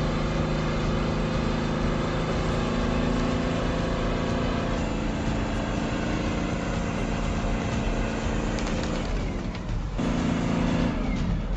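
A heavy machine's engine running steadily under load. Its pitch sags about nine seconds in, then the same kind of engine sound picks up again after a brief break.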